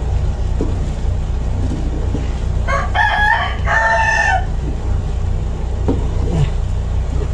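A rooster crows once, about three seconds in, in two parts with a short break. A steady low hum runs beneath it.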